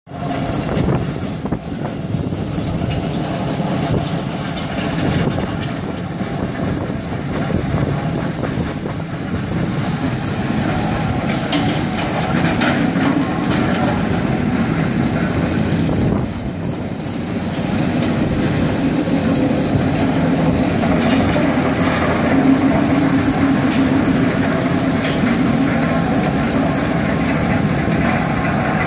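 Mobile crusher and its stacker conveyor running steadily under load, crushing concrete rubble into gravel: a dense, constant machine noise with the rattle of broken concrete.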